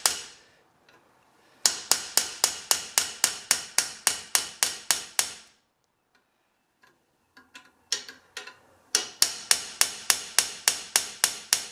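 Hammer striking a rivet snap in quick, even blows, about four a second, peening a soft iron rivet into a dome head on a model locomotive frame. After a pause with a few faint clicks, a second run of blows begins near the end.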